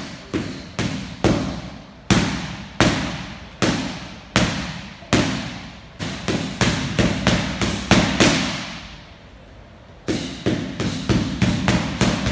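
Boxing gloves smacking into focus mitts, one sharp slap per punch. A quick four-punch combination opens, then single punches come about a second apart, then two fast strings of about ten punches each, separated by a pause of about two seconds.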